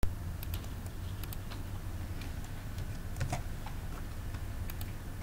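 Scattered computer mouse clicks and keyboard keystrokes, several in quick pairs, as a value is typed in, over a steady low hum.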